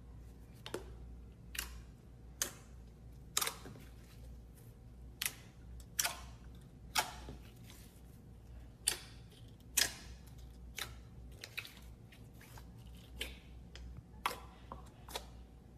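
Slime being pressed and worked by hand, giving short, sharp clicking pops at about one a second over a faint low hum.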